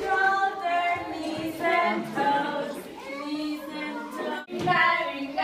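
A group of young children singing an action song together, led by a woman's singing voice.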